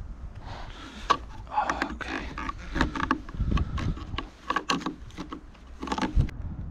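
Irregular clicks, taps and rustles of gloved hands handling a gutter hanger and a taut string line against the fascia board, some in quick clusters, with a low steady rumble underneath.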